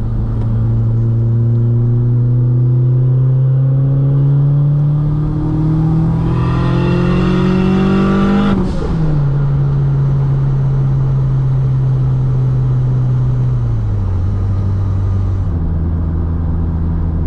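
Mk2 Volkswagen Golf GTS engine under acceleration, its pitch climbing steadily for about eight seconds, then dropping sharply at a gear change. It settles into a steady cruise and eases down to a lower pitch once more near the end.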